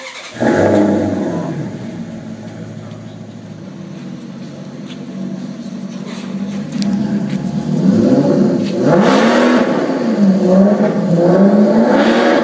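Maserati GranTurismo's 4.7-litre naturally aspirated V8 starting: it catches loudly about half a second in and settles to a fast idle. From about eight seconds in it is revved up and down several times.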